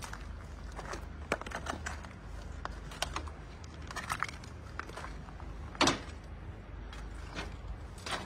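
Footsteps crunching and clicking over earthquake rubble of broken concrete, brick and debris, with one louder crunch about six seconds in, over a steady low rumble.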